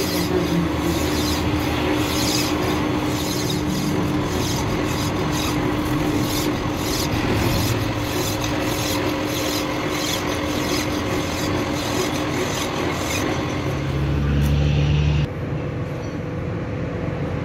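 Continuous metal-working noise from axle repair: a dense scraping rumble with a steady hum underneath. About fifteen seconds in, the higher hiss cuts off abruptly and a lower, quieter running noise remains.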